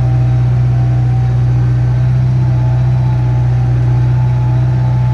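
Backhoe's diesel engine running steadily at an even pitch, heard from the operator's seat.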